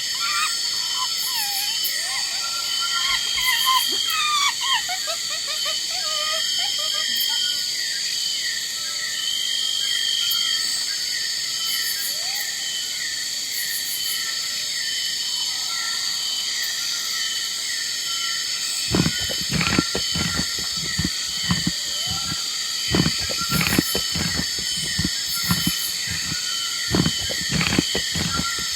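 Wild nature ambience: a steady high-pitched insect and frog chorus with a regular repeating chirp, a few gliding calls in the first several seconds, and a run of sharp clicks or knocks starting about two-thirds of the way through.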